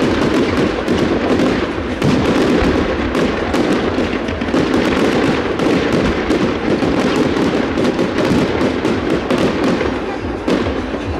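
Fireworks display: dense, continuous crackling and popping of many bursting shells, with hardly a gap.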